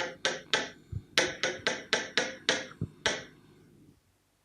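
Loud, rapid knocking on a door: about a dozen sharp knocks at roughly three to four a second, stopping a little after three seconds in.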